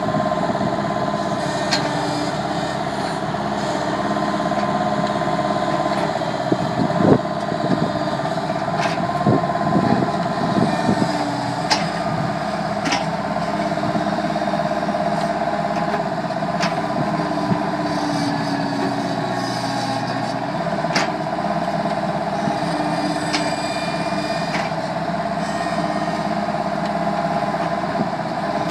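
Bobcat skid-steer loader's diesel engine running steadily with a steady whine, while its backhoe attachment works, giving a dozen or so scattered sharp knocks.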